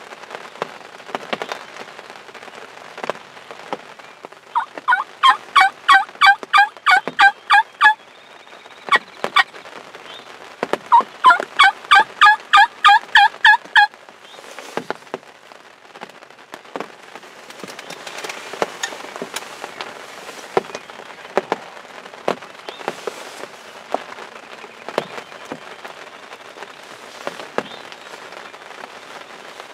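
Turkey yelping in two loud runs of about a dozen notes each, roughly three or four a second, a few seconds apart in the first half. Rain ticks scattered on the blind's fabric throughout.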